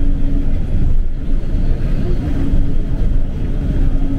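Nova Bus LFS city bus heard from inside while riding, its powertrain running with a low rumble and a steady whine that drops out briefly in the middle and comes back.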